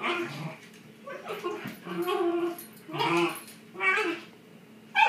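Shiba Inus vocalizing in play while tugging a toy: short pitched growling bursts, about one a second.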